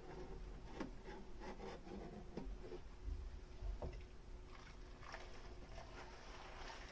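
Dishes being washed by hand: light clinks and small knocks of tableware, about two a second, over soft scrubbing and rubbing.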